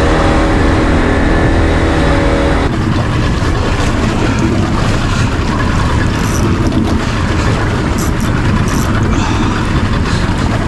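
Boat engine running steadily, then, after an abrupt change about three seconds in, a rougher rushing noise of wind and water with a few sharp clicks.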